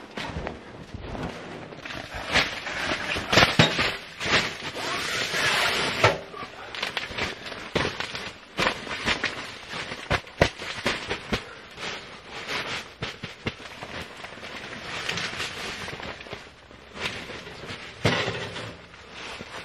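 Handling noise as a small sheet-metal Caminus S tent stove is carried and set down: crunching and rustling with repeated knocks and clunks of the metal stove.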